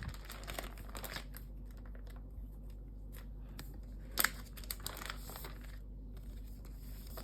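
Pokémon trading cards and crinkly plastic packaging being handled: faint rustling and crinkling with small clicks, and one sharper tap about four seconds in.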